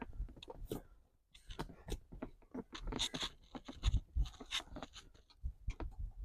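Irregular small clicks, scrapes and knocks of a plastic electrical connector on a fuel pump's top flange being pressed and pried with a pick tool to free its locking clip.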